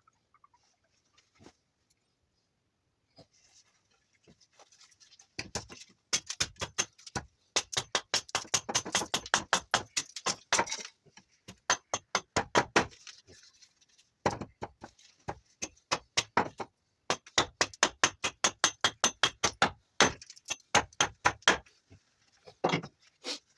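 Quick strokes of a blade cutting into juniper wood, about four or five a second, in runs of a few seconds with short pauses between them.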